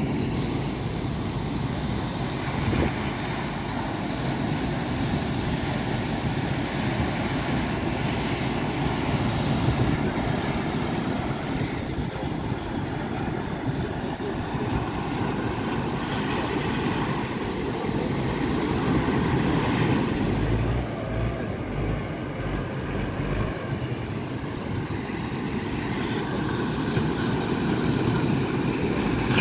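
Steady rumble of surf breaking on the beach, with wind buffeting the microphone. A few low thumps come about two-thirds of the way through.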